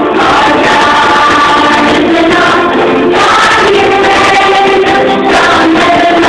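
A group of children singing together as a choir, loud and without a break.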